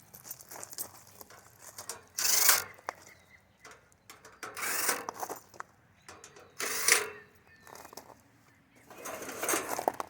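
Metal parts of an air conditioner being handled while it is taken apart: four short bursts of scraping and rattling about two seconds apart, with small clicks and taps between them.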